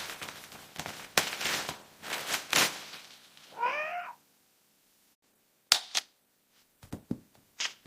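A kitten meows once, about halfway through, amid scattered short clicks and knocks.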